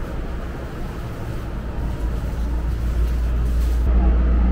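Steady low rumble of cabin noise inside a Shonan Monorail car, a suspended monorail, growing louder over the last couple of seconds.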